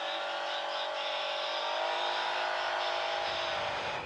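CFMOTO CForce 1000 ATV's V-twin engine, fitted with an aftermarket exhaust, accelerating hard from near standstill. With its CVT the engine note rises a little and then holds at a fairly steady pitch while road speed climbs, and a low rumble builds in the second half.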